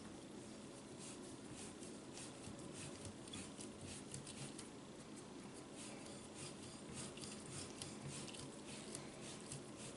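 Faint, irregular scratching and rubbing with small ticks, as hands work the metal and plastic parts of a kitchen faucet spout.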